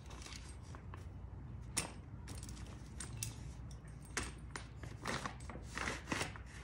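Camping folding table's tubular frame being collapsed by hand: the legs and joints clink and clack as they fold together, with one sharp click about two seconds in and a run of clacks in the second half.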